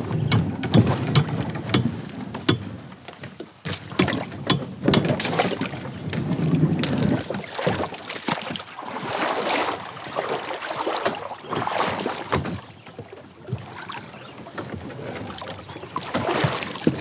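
Plastic sit-on-top kayak (Wilderness Systems Tarpon 120) being paddled away from a dock in shallow water: paddle strokes splash and water washes against the hull, with frequent sharp knocks and clunks from the hull and the gear on it.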